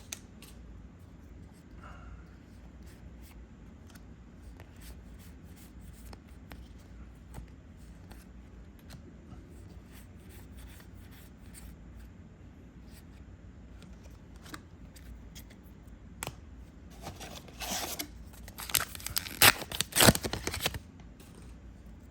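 Trading cards being handled and flicked through with soft clicks and rustles, then, about seventeen seconds in, a few seconds of loud crinkling and tearing as a foil booster pack wrapper is ripped open.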